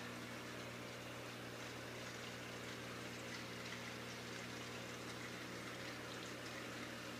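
Aquarium filter and pump running: a steady low hum with a continuous water trickle.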